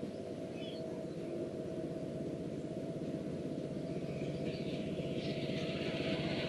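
Miniature railway locomotive approaching along its track, its running sound growing steadily louder as it nears, with a rising hiss from the wheels on the rails joining about halfway through.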